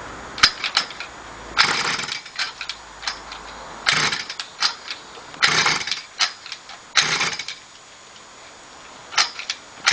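Mini moto's small engine being pull-started over and over without catching: a series of short rasping pulls, some close together, others a second or more apart.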